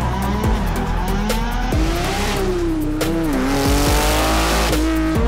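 Car engine revving, its pitch rising and falling, with tyre squeal from a drifting car, over background music.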